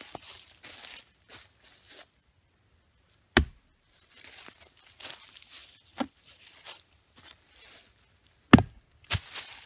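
A homemade knife thrown into a fallen log, striking and sticking with a sharp thunk twice, about three seconds in and again near the end. Between the throws, footsteps shuffle through dry leaves.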